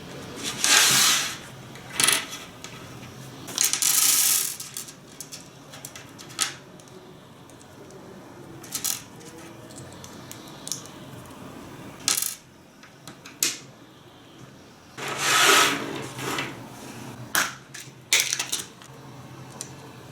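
Small metal parts clinking and rattling in a few bursts of about a second each, with scattered sharp clicks and knocks between them.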